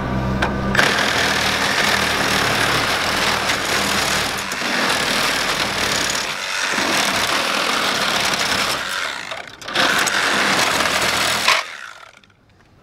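Cordless reciprocating saw cutting through the copper refrigerant lines that run to an AC compressor. The motor runs free for under a second, then the blade bites in for a long steady cut with a brief break about nine and a half seconds in. It stops about a second before the end.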